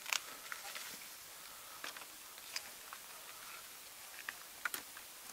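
A knife scoring and splitting the bark of a cinnamon tree trunk: scattered short, crisp cracks and scrapes, the sharpest right at the start and a pair near the end, over a faint steady hiss.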